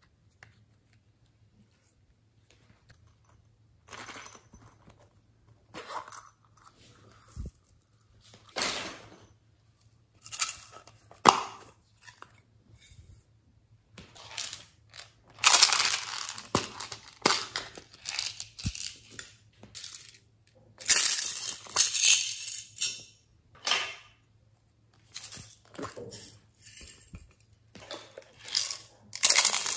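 Glitter, sequins and small plastic pearl beads being shaken out of small plastic cases onto slime in a glass dish, with rattling and clinking of the beads and cases in irregular bursts, the loudest a little past halfway.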